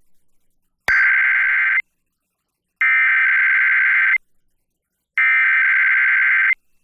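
Emergency Alert System SAME header: three buzzy bursts of digital data tones, each one to one and a half seconds long with about a second of silence between them, coding a Required Weekly Test. A click comes just before the first burst.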